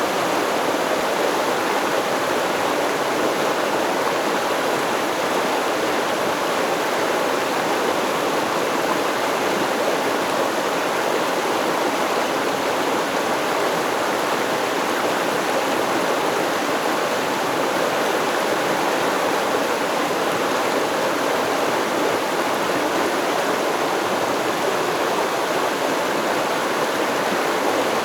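Stream water running over rocks, a steady rushing and babbling that stays even throughout.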